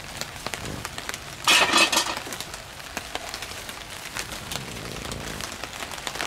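Rain pattering on a tarp and wet leaves as scattered drops and ticks. A short, louder rustle comes about a second and a half in.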